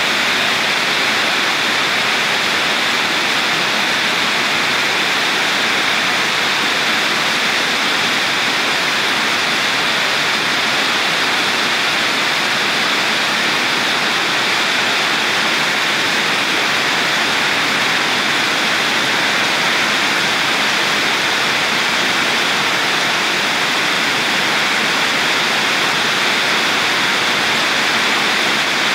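Torrential rain, with sheets of runoff pouring off the edge of a tiled roof and splashing into standing floodwater: a loud, steady rushing of water.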